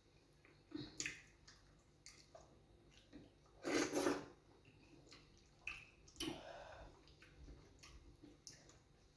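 Mouth sounds of eating fufu with groundnut (peanut) soup: scattered short wet smacks and squelches, the loudest a longer wet burst about four seconds in.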